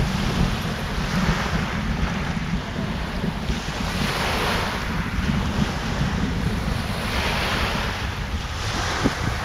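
Strong storm wind buffeting the microphone with a heavy rumble, and a rushing noise that swells and fades every few seconds.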